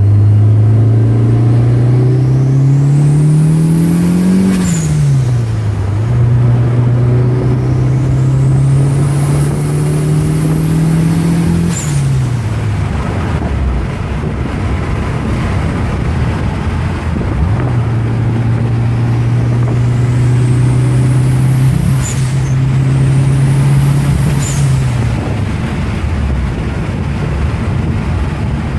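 Turbocharged Mitsubishi 4G63 inline-four in an Eclipse, pulling hard: the engine note climbs slowly while a high turbo spool whistle rises with it, then both drop away sharply when the throttle is lifted. This happens four times, the last two close together, with lower engine running between pulls.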